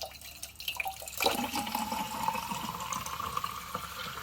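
Water from a sink faucet pouring into a drinking glass, growing stronger about a second in, with a tone that rises slowly as the glass fills.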